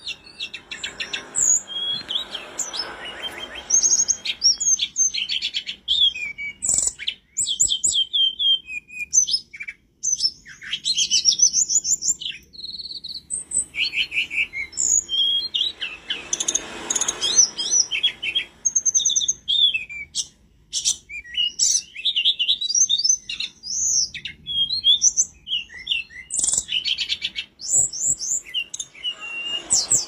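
Hill blue flycatcher (tledekan gunung) singing continuously: a fast, varied stream of short high whistles and rapid trilled phrases, with a song rich in borrowed phrases (isian).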